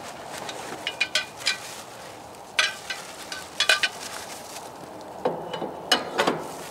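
Metal deer-feeder leg sections clinking and clanking against each other as they are picked up and handled: a series of sharp metallic clinks with brief ringing, in clusters about a second in, in the middle, and near the end.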